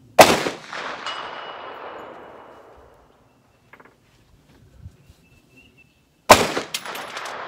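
Two shots from a 450 Bushmaster AR-15, about six seconds apart, each rolling away in a long echo. About a second after each shot comes a faint ring of the steel target being hit downrange.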